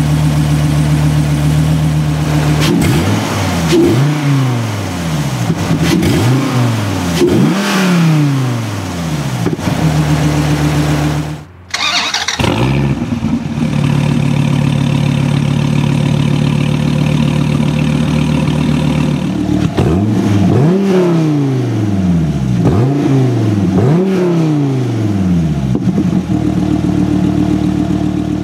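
2014 SRT Viper GTS's 8.4-litre V10 idling through its side-exit exhaust and revved three times in quick succession, each rev rising sharply and falling back to idle. After a brief cut it idles again, then is revved three more times.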